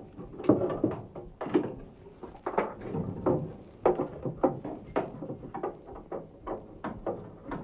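Irregular clicks, knocks and light rattles of furnace parts and tools being handled as a gas furnace is taken apart, several sharp knocks a second.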